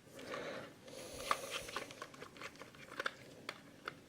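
Faint scattered clicks and light rustling from handling a plastic remote-control transmitter while its battery compartment is being opened.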